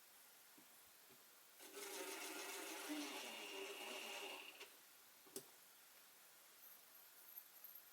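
A cordless drill runs steadily for about three seconds, driving a screw, then a single sharp click.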